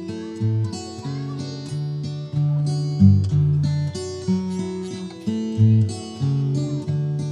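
Background music: plucked acoustic guitar playing a steady, cheerful pattern of notes.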